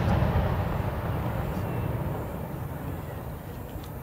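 Low rumbling echo of a large aerial firework shell's boom dying away slowly, with a few faint crackles.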